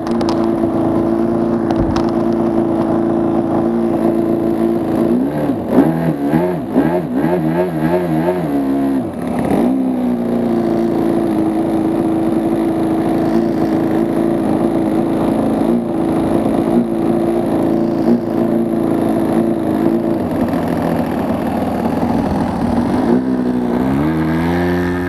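RC biplane's engine running at a steady throttle, its pitch wobbling rapidly up and down for several seconds as the aircraft manoeuvres, then falling away near the end as it is throttled back.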